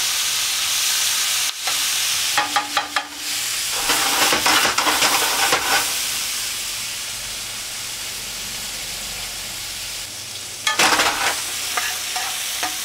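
Raw vegetables sizzling in hot oil in a heavy-bottomed pan as they are sautéed to soften, with a utensil stirring through them in three short bouts.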